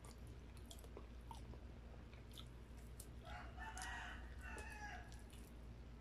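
A rooster crows once in the background about three seconds in, a pitched call lasting about two seconds. Faint chewing and small mouth clicks of eating run underneath.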